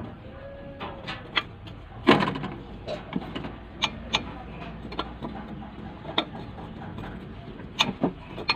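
Irregular sharp clicks and knocks of hand work at a truck's oil filter housing during an oil change, the loudest about two seconds in.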